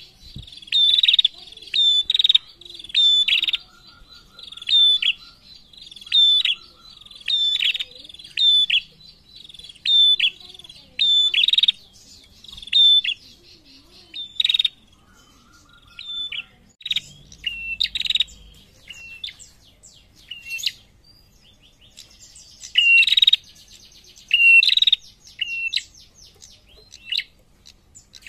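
Prenjak, a small songbird, calling: loud, sharp chip notes repeated about once a second, with a softer, quick ticking series between them in places. In the last few seconds a buzzy chatter joins the calls.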